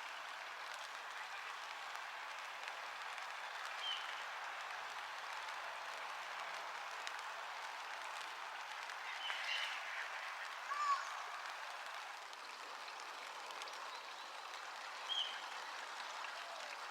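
Steady patter of rain falling in a sun shower, with a few short bird calls about four, ten, eleven and fifteen seconds in.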